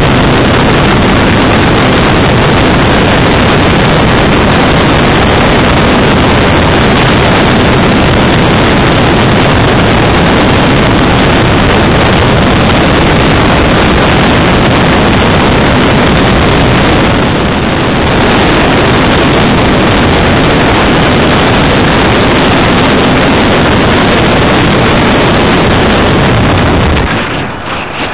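Parkzone Radian electric glider's brushless motor and propeller running under power in the climb, heard from a camera on the airframe as a loud, steady rush of motor noise and wind on the microphone. The level drops near the end.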